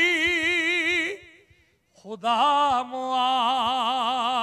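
A man's voice chanting a line of Urdu devotional verse in long held notes with heavy vibrato. One note is held for about a second, then after a short pause a second note is held for about two seconds.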